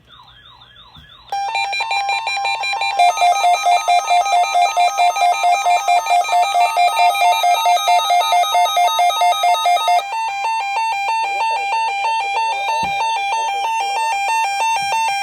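Electronic alert tones. A brief warbling tone opens, then a rapid run of pulsing beeps at about four or five a second. Near the middle the beeping changes to a different pattern, with a tone sweeping slowly up and back down.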